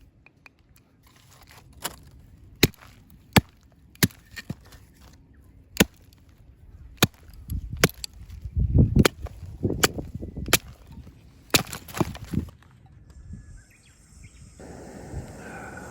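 Firewood being broken up for a campfire: a dozen or so sharp, irregular cracks of dry wood, with a few dull knocks in between. A steady hiss starts near the end.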